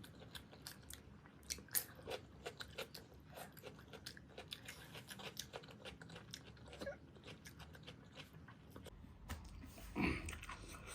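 A person chewing and eating food close to the microphone: irregular soft crunches and wet mouth clicks, with a louder burst about ten seconds in.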